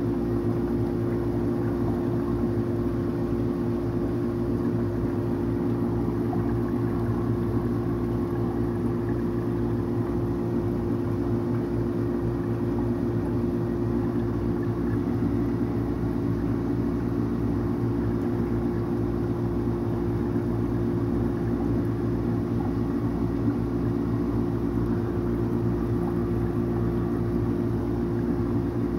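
Steady low hum of an aquarium pump motor, with a few fixed tones that do not change.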